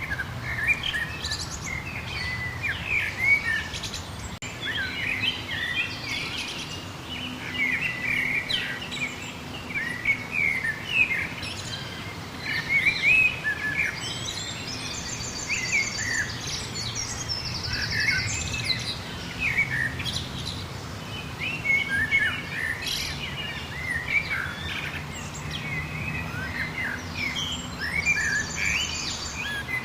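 Many songbirds chirping and singing at once in a dense, overlapping chorus of short whistled notes. A fast, high trill breaks in twice, once around the middle and once near the end, over a low steady background hum.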